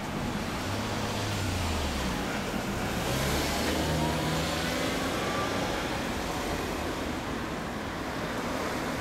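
Street traffic: a passing road vehicle's engine and tyres, its engine note dropping and then rising, loudest about three to four seconds in.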